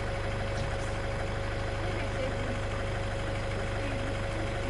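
Game-drive vehicle's engine idling steadily: a constant low hum with a faint steady whine above it.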